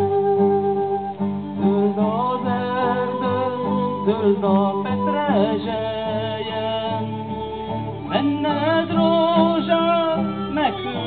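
Band music with guitar and a singing voice, the melody wavering over a steady accompaniment.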